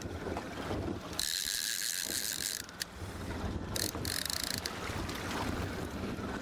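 A fishing reel's drag buzzing in spurts as a hooked fish pulls line off near the boat. One run lasts about a second and a half shortly after the start, and shorter runs follow about four seconds in.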